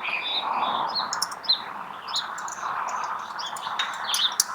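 Small birds chirping repeatedly over a steady outdoor background noise, with a few light clicks near the end.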